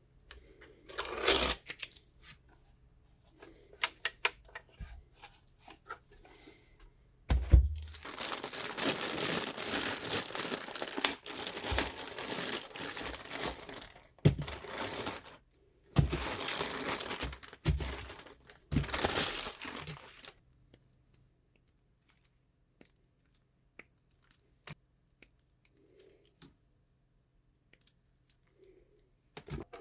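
Packaging being handled during a PC component unboxing: wrapping crinkling and tearing in a long stretch with brief pauses, with a shorter burst near the start and small scattered clicks and knocks.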